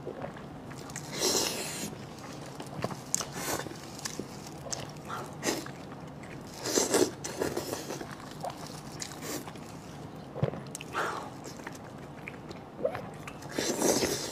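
Close-up eating sounds: a person biting into and chewing food, in short irregular bursts every second or two.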